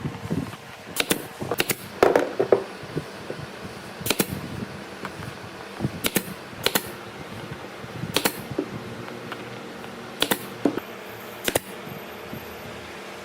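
Irregular sharp knocks and clicks of workshop hand work, about ten strikes spaced a second or more apart, over a faint steady hum.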